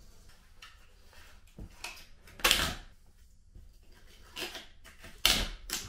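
Short knocks and scrapes from hands working on a freshly laid tile floor, several in all, the two loudest about two and a half and five seconds in.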